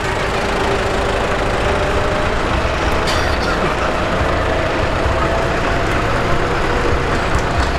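Turbocharged 8.1-litre John Deere diesel of a modified pulling tractor running steadily as the tractor rolls slowly, with a faint steady whine over the engine noise.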